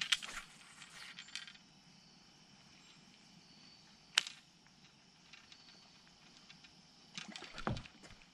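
Quiet outdoor ambience with a faint steady insect trill, broken by a few sharp clicks from the fishing rod and reel being handled, the loudest about four seconds in, and a short cluster of knocks and rustles near the end.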